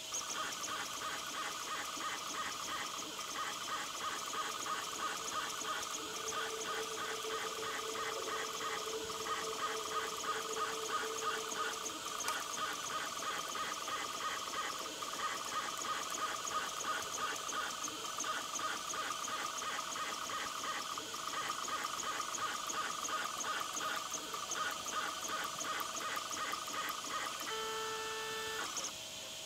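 Stepper motors of a 3D-printed Root 3 Lite CNC machine whining in a fast, even pulsing rhythm as it probes a copper-clad PCB blank during auto-levelling, sped up sixfold. Near the end the pattern gives way to a brief different-pitched tone before the motors stop.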